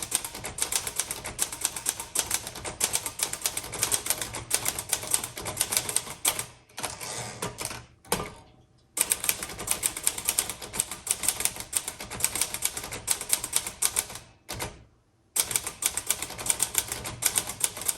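1964 Olivetti-Underwood Lettera 32 manual portable typewriter being typed on fast: rapid runs of key strikes, broken by two short pauses, one near the middle and one about three-quarters of the way through.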